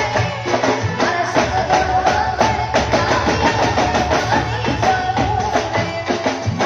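Music from a devotional folk bhajan, with percussion keeping a steady, fast beat under a wavering melody line.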